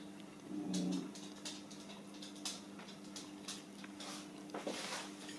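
A dog gives a short whine about half a second in, over a steady low hum, with a few faint ticks after it.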